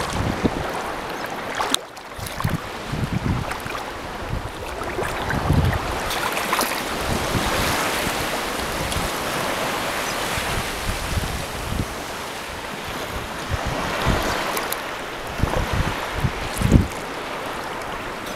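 Small sea waves lapping and washing onto a sandy shore, heard close to the water's surface, with wind gusting on the microphone and a few low thumps.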